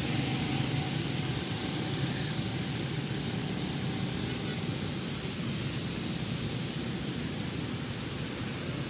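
Steady hiss of rain and traffic on a wet road, with a low rumble of passing vehicles.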